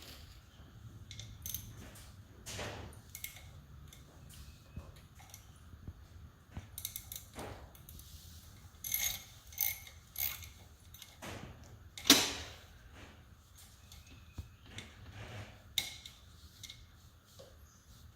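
Metal hand tools working on a dirt bike's engine cases, clicking and clinking in short, irregular bursts, with one sharp knock about twelve seconds in.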